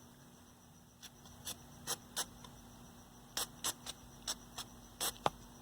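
About a dozen small, sharp clicks and taps at irregular intervals, bunched in the second half, over a faint steady hum. These are the sounds of hands and tools handling the TV chassis's circuit-board pins.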